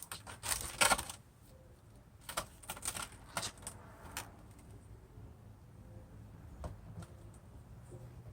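Clicks and light rattles from a 2019 Nissan outside door handle's parts being handled and clipped into place on the door: a dense run in the first second, a few more between about two and four seconds in, then only a couple of faint clicks.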